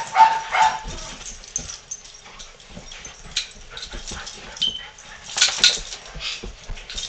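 Dogs playing, with short yips and barks at the start and again from about five seconds in, and a quieter stretch between.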